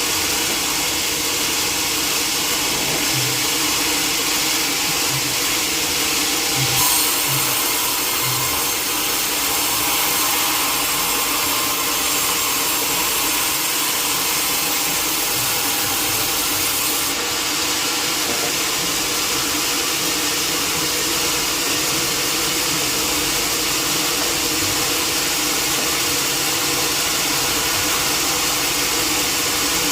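Sawmill saw machinery running steadily, a constant mechanical drone over a hiss, with the high hiss growing brighter for about ten seconds from around seven seconds in.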